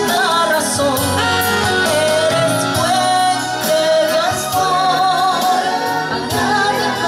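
A woman singing a Spanish-language gospel song with vibrato, over instrumental accompaniment with bass and a steady percussion beat.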